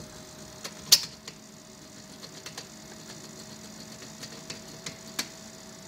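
RC car steering servo humming steadily while powered, a noise put down to the servo not yet being adjusted. A few sharp clicks come over it, the loudest about a second in.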